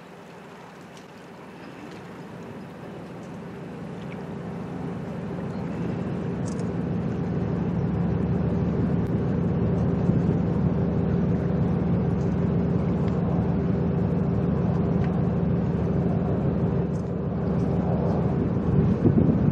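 Boat engine running with a steady hum, growing louder over the first several seconds and then holding steady, with a brief louder rumble near the end.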